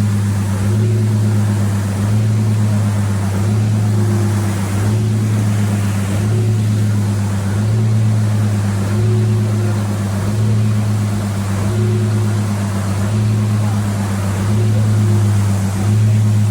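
A heavy engine or machine running steadily with a deep hum that swells in a regular pulse about every second.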